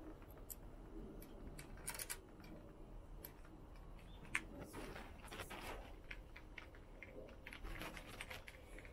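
Faint scattered clicks and light taps of hands handling the stem and headset parts of a Trek Domane road bike during reassembly, with one sharper click about four and a half seconds in.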